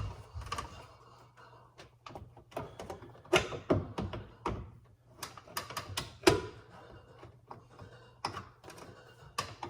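Scraper prying the plastic trim off a microwave door: irregular clicks, taps and knocks of the tool on plastic as the trim's clips come loose. The loudest knock comes about six seconds in.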